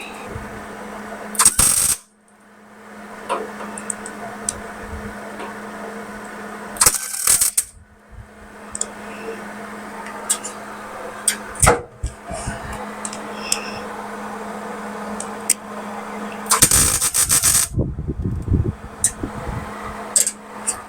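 Arc welding on the steel core support of a Dodge D150: several runs of steady crackling from the arc, each lasting a few seconds, with short pauses and a few sharp louder bursts between them, over a steady hum.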